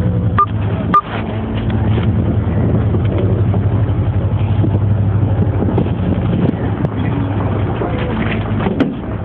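Dodge Ram pickup's engine running steadily while the truck plows snow, heard from the back of the truck. Two short, sharp sounds about half a second and a second in.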